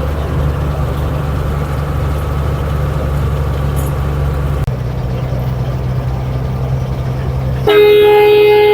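Bus engine running with a steady low hum, then near the end a vehicle horn sounds, loud and held.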